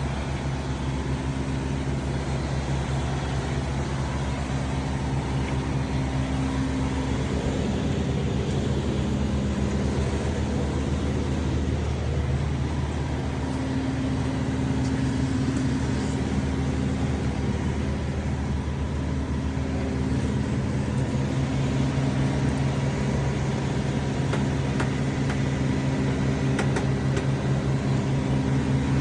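Truck engine idling steadily, a low, even running that holds throughout.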